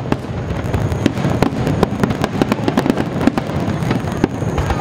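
Aerial fireworks bursting in quick succession: a dense run of sharp cracks and pops over a steady low rumble.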